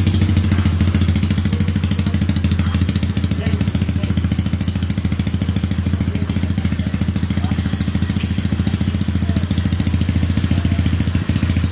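Newly built Yamaha Mio 160 single-cylinder four-stroke drag-scooter engine with a 30 mm carburettor idling steadily and loudly at an even beat, at its first start-up after the build.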